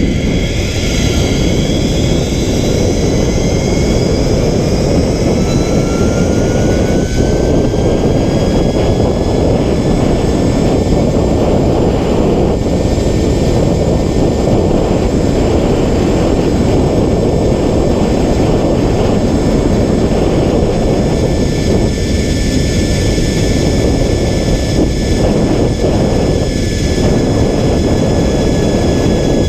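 Wind rushing over the microphone of a camera riding a zipline, with a thin whine from the trolley's pulleys running along the steel cable. The whine rises in pitch over the first several seconds as the ride picks up speed, then holds steady.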